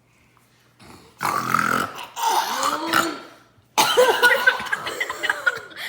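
A kid burping loudly: a long burp starting about a second in, then a second drawn-out burp-like vocal noise from just under four seconds in.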